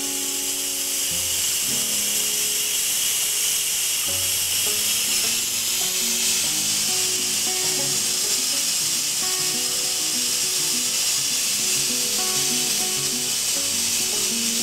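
Instant Pot Duo Plus pressure cooker venting steam through its release valve in a quick release after pressure cooking: a steady hiss, with background music under it.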